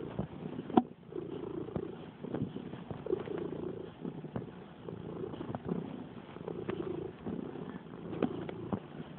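Domestic cat purring close up, the purr coming in uneven pulses, with a few sharp clicks scattered through.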